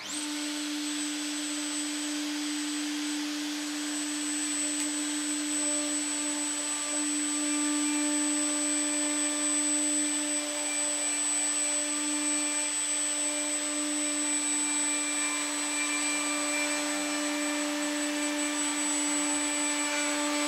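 Plunge router switched on, running at full speed with a steady high whine as it cuts a rectangular recess into a wooden board, guided by a clamped template.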